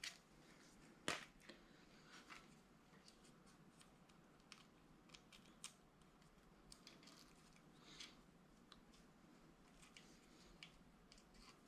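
Faint, scattered clicks and scrapes of a plastic zip tie being pushed and worked into the oil feed hole of a freshly installed camshaft bearing, with one sharper click about a second in. The zip tie is probing whether the bearing's hole lines up with the block's oil passage.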